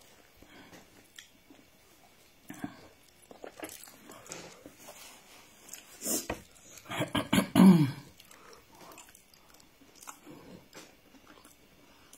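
A person chewing rice, with soft wet mouth clicks and smacks, eaten by hand. About seven seconds in comes a louder, brief throat sound.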